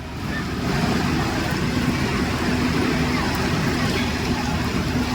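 Strong wind buffeting the phone's microphone: a loud, steady low rumble that builds up during the first second, with a faint steady hum underneath.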